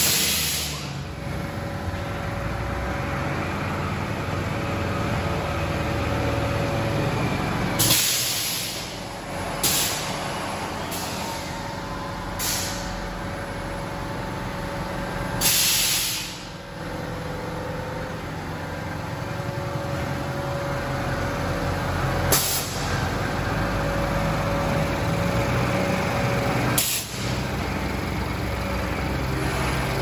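ISKOM silage bagging press running with a steady mechanical hum, broken every few seconds by short, sharp hisses of compressed air as its pneumatic cylinders work, about seven in all.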